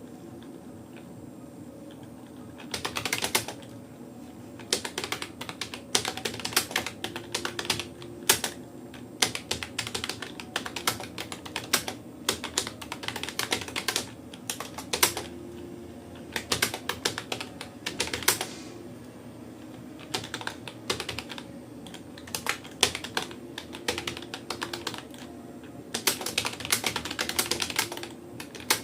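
Rapoo computer keyboard being typed on: fast, irregular key clicks in runs, broken by brief pauses of a second or two.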